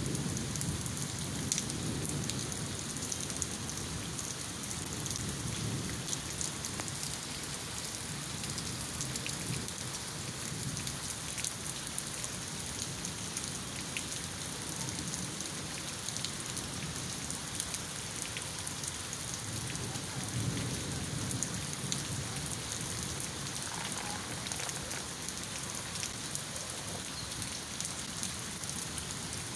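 Heavy rain falling steadily on paving and leaves, with drops ticking close by. A low rumble swells near the start and again about two-thirds of the way through.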